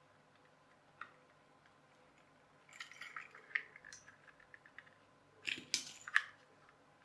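Clear plastic gearbox of a clockwork toy car handled and pressed together, its plastic parts clicking and rattling: one click about a second in, a cluster of small clicks around three to four seconds, and the loudest sharp clicks near six seconds.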